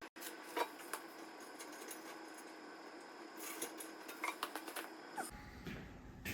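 Irregular light clicks and taps of hand work on sheet-metal heater parts, over a faint steady hum.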